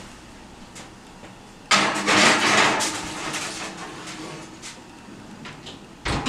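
A metal baking pan going into an oven: a sudden loud clatter that rings on for about a second, then scattered light knocks and clicks, and a dull thump near the end.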